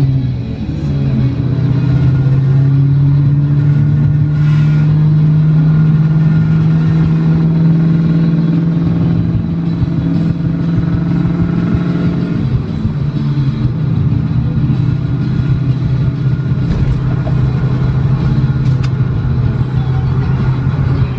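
Car engine and tyre noise heard from inside the cabin while driving at a steady speed: a steady low drone that drops in pitch about twelve seconds in.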